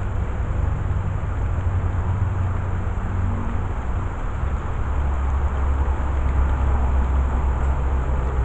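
Low, steady rumble of a motor vehicle running close by, with a lighter noise on top.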